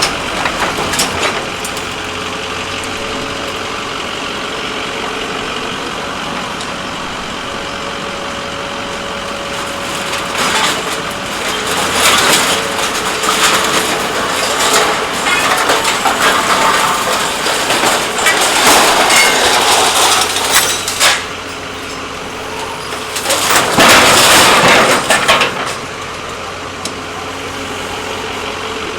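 Truck engine idling steadily, with two louder stretches of harsh, crackling noise over it: a long one through the middle and a shorter one a little later.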